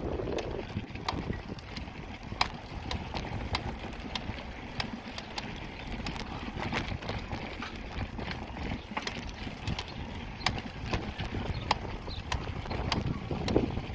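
A bicycle rolling over a paving-stone street, its frame and parts rattling with irregular sharp clicks and knocks over a low road and wind rumble.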